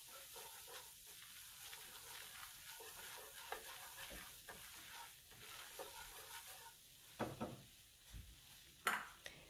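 Whisk stirring a bubbling butter-and-flour roux in a nonstick pan: faint scraping with a soft sizzle. Two louder short knocks near the end.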